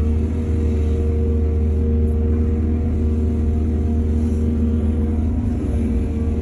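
Heavy diesel machinery engine running steadily: a constant low drone with a steady hum above it, no clear changes in speed.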